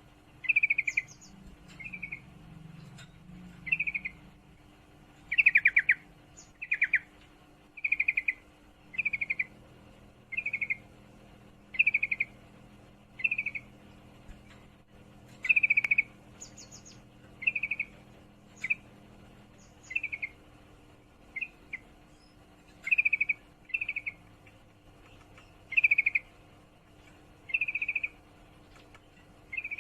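Female yellow-vented bulbul (trucukan) giving short, rapid trilled chattering calls, one every second or two, about twenty in all: the call of a female in breeding condition calling a male.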